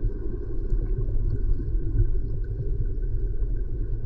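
Creek water flowing over a submerged camera's housing: a steady, muffled low rumble with faint scattered ticks.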